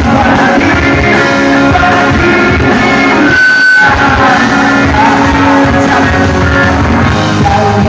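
Live pop-rock band playing loud through large PA speakers, heard close up and distorted.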